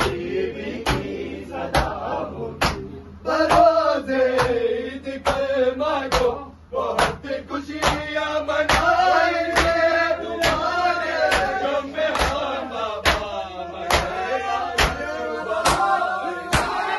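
A group of men chanting a nauha (Shia lament) together, with their chest-beating (matam) landing as sharp slaps in a steady beat about twice a second. The singing briefly drops away about six seconds in, then the chanting and beating carry on.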